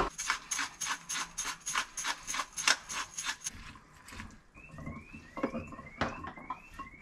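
A spice jar shaken over food in quick, even strokes, about five a second, stopping after three or four seconds. This is followed by a run of short rising squeaks about half a second apart.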